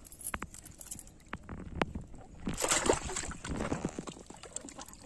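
Muddy water sloshing and gurgling as an arm works inside a flooded hole in a pond bank, loudest in the middle, with a few sharp clicks in the first couple of seconds.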